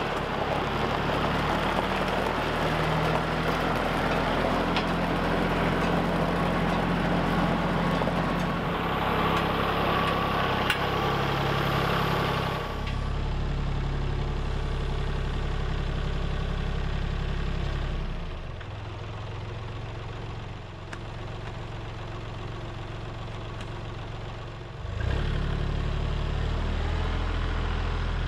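Compact tractor's diesel engine running steadily under loader work. It drops to a lower, quieter running about 18 seconds in and picks up again sharply about 25 seconds in.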